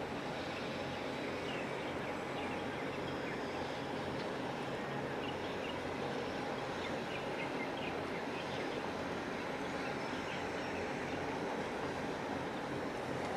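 Steady low drone of a crude oil tanker's engine and machinery as the ship glides past close by, with faint high chirps scattered through it.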